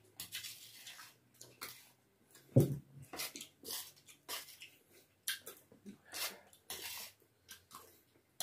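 A metal spoon scraping and clinking on a stainless steel plate and slurping of the last spicy noodle soup, in short sharp bursts, with one loud thump about two and a half seconds in.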